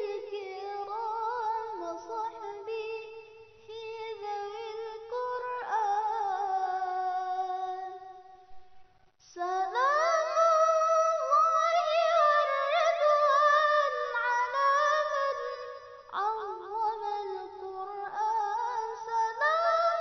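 Background music: a high singing voice carrying a wavering, ornamented melody with upward slides into the notes, without drums or bass. It breaks off briefly around nine seconds in, then resumes louder.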